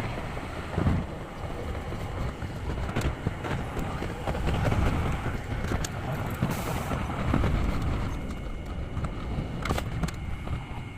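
Hankai Tramway streetcar running: a steady rumble of wheels and motor with scattered sharp clicks and knocks.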